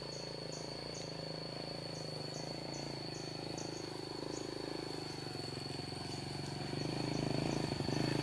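Small motorcycle engine running steadily and growing louder toward the end as it approaches. Behind it are the constant high-pitched whine of forest insects and short chirps repeating about three times a second, which fade out about halfway through.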